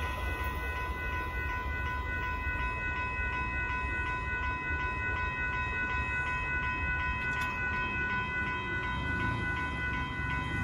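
Railroad crossing warning bell ringing steadily in quick repeated strokes while the gates are down, with the low rumble of the passing Amtrak train underneath.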